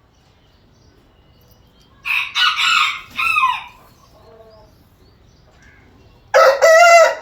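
Aseel rooster crowing: one crow about two seconds in, ending in a falling note, and a second crow starting near the end.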